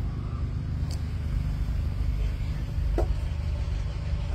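Ford Model TT bus's four-cylinder engine running steadily with a low, pulsing rumble. Two sharp clicks or knocks come through, one about a second in and one near three seconds.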